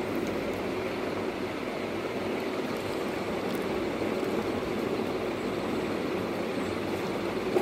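Steady rushing background noise, even throughout, with no distinct knocks, calls or speech.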